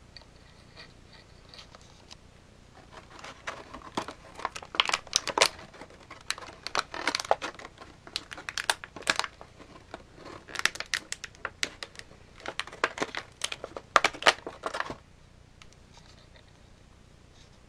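Packaging crinkling and crackling in quick bursts as the figure's accessories are pulled out of it. It starts about three seconds in, eases briefly midway and stops a couple of seconds before the end.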